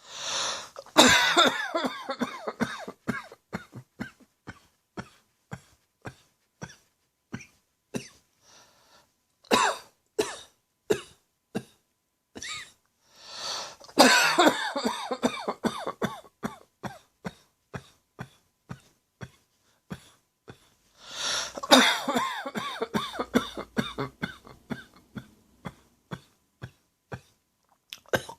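A person's harsh, dry cough, coming in four longer fits of rapid coughs, at the start and about 10, 14 and 22 seconds in, with short single coughs between them. It is a tickly throat cough of the kind put down to a throat tickle combined with acid reflux.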